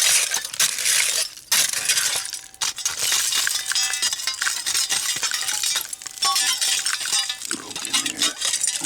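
Broken glass and scrap iron in a bottle dump clinking and scraping as it is dug through: a rapid jumble of small clinks and rattles, with a few short ringing notes.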